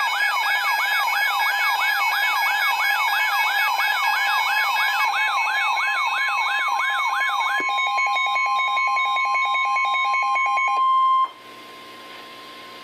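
Weather radio alert: a warbling siren sweeping up and down about three times a second over the steady 1050 Hz NOAA Weather Radio warning alarm tone, which signals a warning broadcast. The siren stops about seven or eight seconds in. The plain tone holds for a few seconds more, then cuts off to faint hiss.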